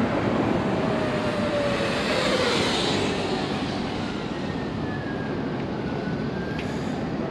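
Street traffic noise: a vehicle passes, loudest about two to three seconds in, with a faint falling whine as it goes by.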